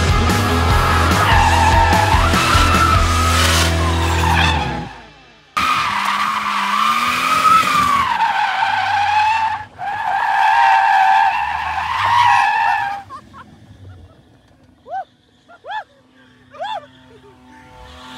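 Drift car's tyres squealing through long slides in three stretches, each a few seconds long and wavering in pitch, with the car's engine running underneath; background music plays over the first few seconds. After about thirteen seconds it drops much quieter, with a few short chirps.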